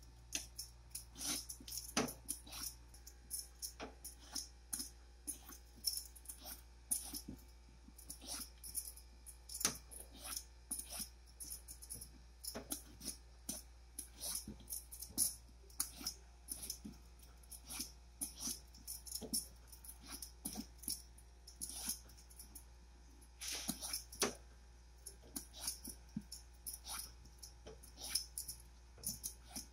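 Metal vegetable peeler scraping the skin off a luffa (sponge gourd) in quick strokes: an irregular run of short scrapes and clicks, several a second.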